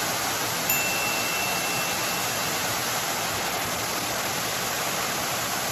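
Waterfall pouring into a pool: a steady, loud rush of falling water.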